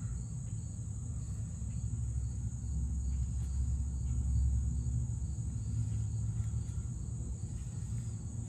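Outdoor background: a steady, high-pitched insect chorus over a low rumble that swells around the middle and then eases off.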